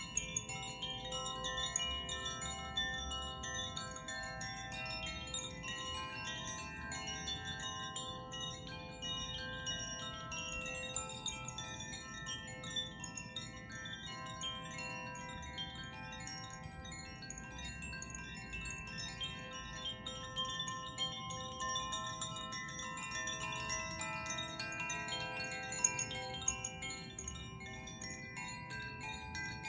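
Hand-played tuned wind chimes, rung continuously. A clapper makes quick, light strikes on the tuned rods, and the tones overlap into a sustained wash of ringing.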